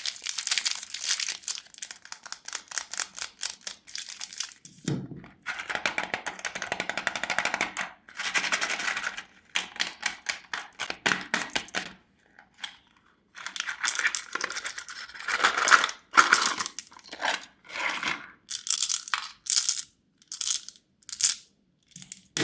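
Shiny plastic candy wrappers crinkling and crackling as they are handled and unwrapped, in a string of short bursts with a brief pause about halfway through.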